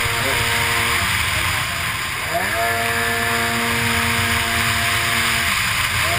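A racing runabout jet ski's engine running hard over water spray and wind on an onboard mic. It eases off about a second in and revs back up with a rising whine a little after two seconds. It holds high revs, then backs off again near the end as the ski nears a turn buoy.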